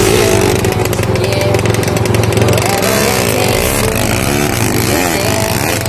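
Dirt bike engine running in a flooded river crossing, its pitch rising and falling several times as the throttle is worked, over the rush of fast-flowing water.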